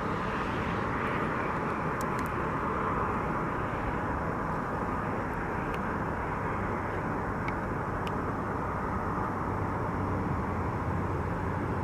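Steady hum of highway traffic, tyres on the road, with a low engine hum growing near the end as a vehicle approaches.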